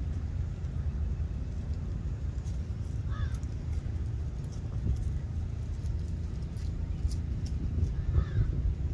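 Wind rumbling on the microphone, a steady low buffeting, with two brief faint calls, one about three seconds in and one near the end.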